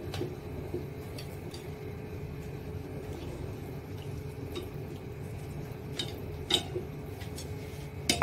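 Wooden chopsticks clicking against a stainless steel saucepan while chicken legs are dipped into and lifted out of hot water, a few light clicks with most of them in the last couple of seconds, over a steady low hum.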